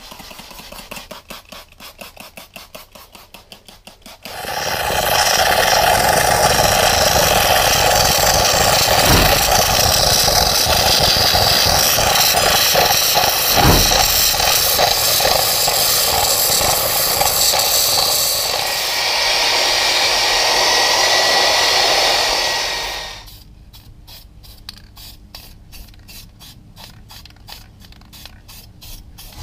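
Handheld electric spray gun running with a loud steady hiss and buzz for about 18 seconds, spraying the VW gearbox. It is framed by quieter rhythmic scrubbing strokes: before it starts, about four seconds in, and again after it stops, about 23 seconds in.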